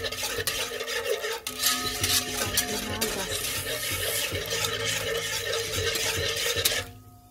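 Wire whisk stirring and scraping through a thick ube (purple yam) mixture in a nonstick pot, a dense rapid scratching that stops abruptly near the end.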